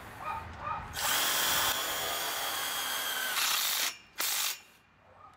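Cordless drill driving a self-tapping screw into the metal tubing at a gate-frame corner. It runs steadily for about three seconds starting a second in, then gives one short burst near the end.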